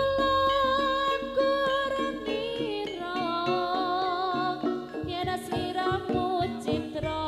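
Live jaranan music: a held, wavering melody line over the ensemble. Drum strokes come in more strongly about five seconds in.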